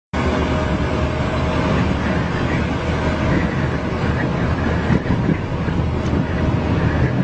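Steady drone of a moving vehicle at highway speed: engine hum with wind and road noise, sounding without let-up.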